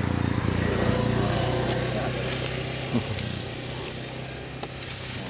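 A motor vehicle's engine running as a steady low hum that is loudest in the first two seconds and then fades away. A short knock comes about three seconds in.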